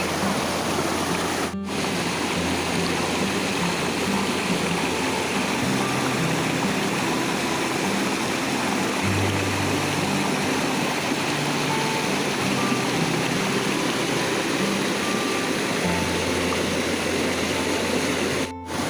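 Waterfall rushing steadily, with background music of slow, stepping bass notes underneath. The sound drops out briefly about a second and a half in and again near the end.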